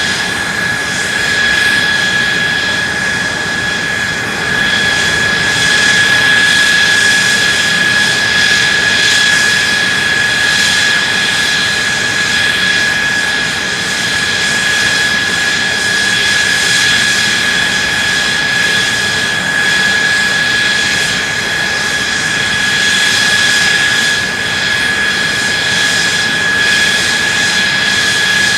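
F-2 fighter's F110 turbofan engine running steadily on a ground run: loud rushing jet noise with a steady high-pitched whine, swelling slightly in loudness now and then.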